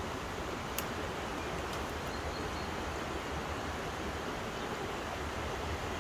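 Steady rushing outdoor noise of wind buffeting the microphone and the river flowing, with a single sharp click about a second in.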